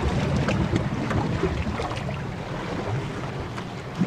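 Wind buffeting the microphone, with waves washing against the breakwater rocks.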